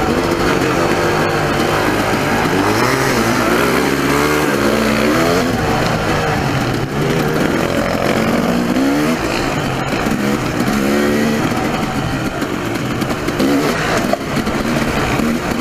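Dirt bike engine running under way, its revs rising and falling over and over as the throttle is worked, with wind rushing over the microphone.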